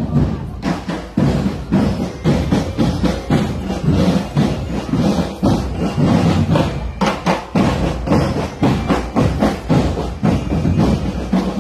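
Cadet marching drum band playing a loud, steady drum cadence of rapid, evenly repeating beats.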